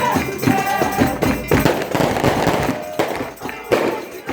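Folia de Reis music: tambourine and drum strokes in a fast, dense rhythm under held notes.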